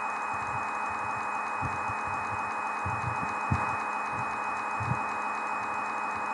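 Steady hiss with a thin, steady high whine behind it, broken by a few soft low thumps.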